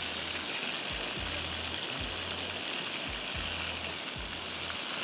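Marinated chicken pieces sizzling steadily as they shallow-fry in hot oil in a frying pan.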